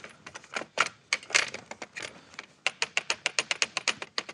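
Blue plastic saw sled of a Kreg AccuCut track-saw guide clacking against its aluminium rails as it is rocked back and forth by hand: a quick, irregular run of clicks. The rattle is the sign of loose play, about a 32nd of an inch, between the sled and the rails.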